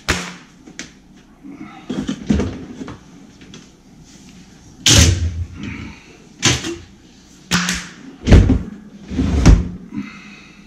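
A GE stainless-steel dishwasher knocking and thudding against the cabinet opening and floor as it is shifted and pushed into place, about seven separate bumps, the heaviest thuds about five and eight seconds in.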